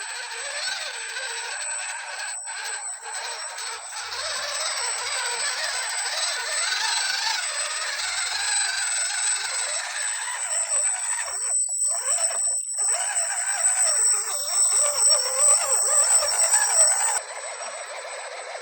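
Electric RC crawler's motor and geared drivetrain running with a steady high whine over gear and tyre noise, briefly easing twice, then cutting off suddenly near the end.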